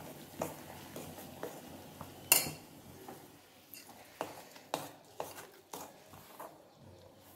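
A spoon stirring a damp gram-flour and semolina mixture in a stainless-steel bowl, with irregular scrapes and taps against the bowl and one sharp, ringing clink about two seconds in.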